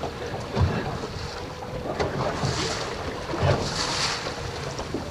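Wind buffeting the microphone and water washing against the hull of a small open fishing boat, over a faint steady motor hum. Two dull knocks, one under a second in and one about three and a half seconds in, and two short hissy swells of spray or gust.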